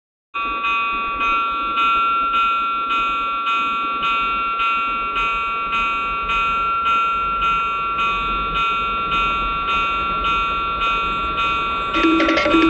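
A steady electronic tone of several pitches held together, pulsing evenly about twice a second, starting abruptly about half a second in. Near the end a louder train noise joins in.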